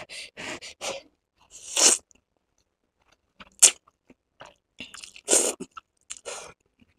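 Close-miked eating of hot-and-spicy instant ramen noodles: a run of short, wet mouth sounds as forkfuls of noodles are taken in and chewed, loudest about two, three and a half and five seconds in.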